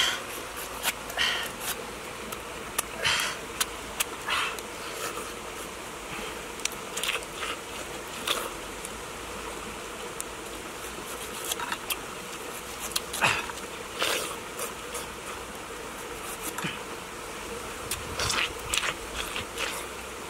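Machete blade slicing and scraping the rind off a pineapple in short, irregular strokes, over a steady background hum.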